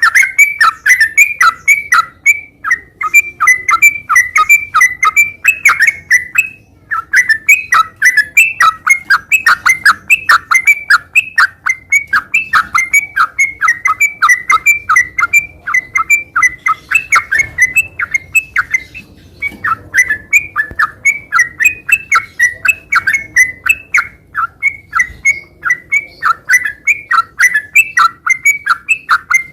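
Sooty-headed bulbul (trucukan) singing a long, fast run of rapid chirping notes with hardly a break, pausing briefly about 7 and 19 seconds in.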